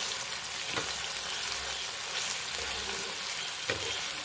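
Chicken pieces sizzling in oil in a nonstick frying pan as a steel spoon stirs them, with a little of the meat's released water still cooking off. A few light knocks of the spoon against the pan come about a second in and again near the end.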